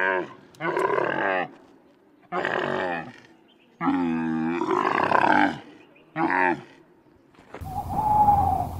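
Dromedary camel calling: four drawn-out calls with short pauses between them, the longest lasting close to two seconds. Near the end the sound changes to an owl hooting once over a light hiss.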